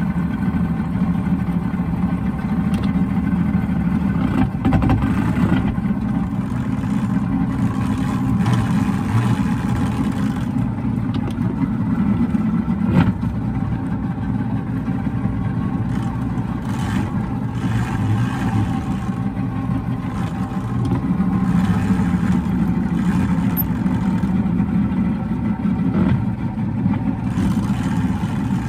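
Boston Whaler Outrage's outboard engine running steadily while the boat is underway, with one sharp click about halfway through.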